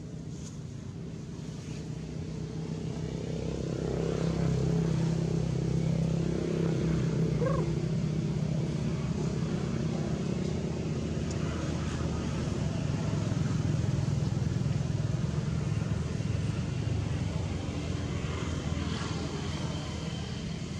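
A motor vehicle's engine running nearby with a low, steady hum that grows louder a few seconds in, stays loud through the middle, and eases off toward the end, as it passes by slowly.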